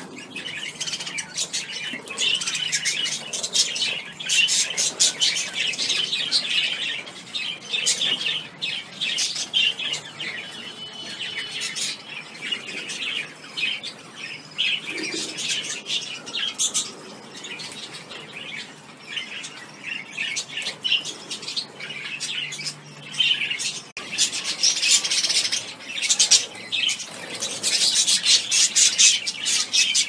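A flock of budgerigars chattering, a dense run of rapid high chirps and warbles overlapping one another.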